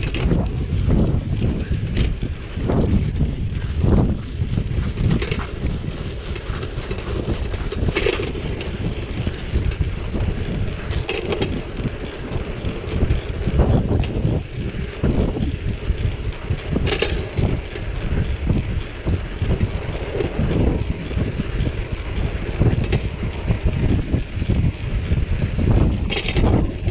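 Wind buffeting the microphone while riding a heavy city-share bicycle on asphalt, a steady rumble of wind and rolling tyres. A few sharp knocks come through along the way.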